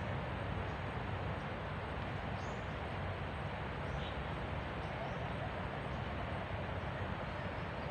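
Steady forest background hiss, with a few faint, short high chirps from small birds scattered through it.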